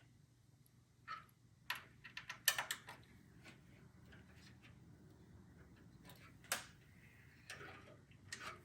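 Scattered light clicks and taps of a motherboard, its screws and the case's metal parts being handled while the board is fitted into a PC case, with a few sharper clicks about two and a half and six and a half seconds in.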